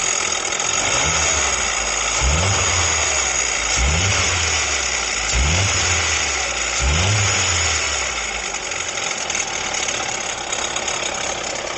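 Jeep Renegade engine idling and blipped four times, about every second and a half, over a steady high whine and hiss from the front of the engine, on the accessory-belt side. The noise stops when the accessory belt comes off and is traced to a water pump pulley with play.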